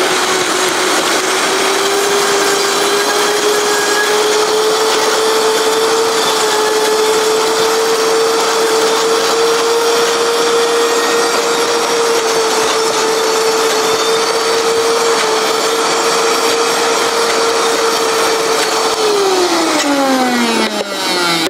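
Vitamix high-speed blender running steadily while it purees soaked Irish sea moss into a gel. Its motor pitch climbs slightly over the first few seconds as it comes up to speed. Near the end it is switched off and winds down with a falling whine.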